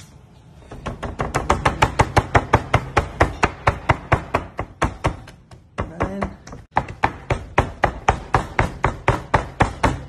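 Hands patting breadcrumbs and sliced almonds onto a flattened beef escalope in a tray: quick, even slaps, about four or five a second, with a short break a little past the middle.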